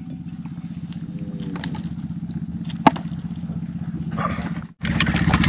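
A small engine running steadily, a low drone with a single sharp click about three seconds in. Near the end the sound cuts out for a moment and comes back louder.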